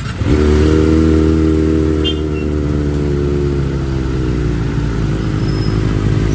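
Kawasaki 250 cc sportbike engine with an aftermarket exhaust, coming in suddenly just after the start and running at a steady idle.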